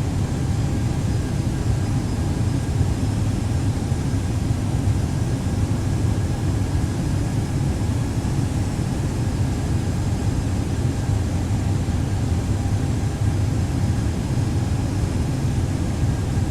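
Steady jet airliner cabin noise on final approach: a deep rumble of engines and airflow, with faint steady whining tones over it.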